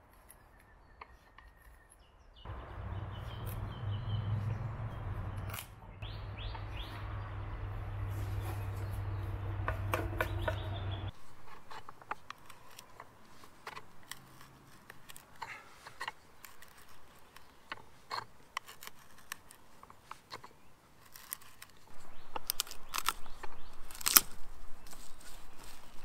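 Hand wood auger boring into a log: irregular creaks, clicks and crackles as the bit cuts the wood, louder over the last few seconds. Before that there is a steady low hum for several seconds.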